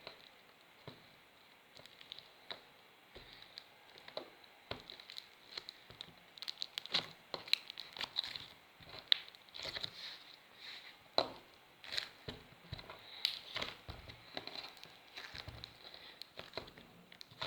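Slime putty being squeezed and worked by hand, giving irregular sticky clicks and crackles that come thicker after the first few seconds.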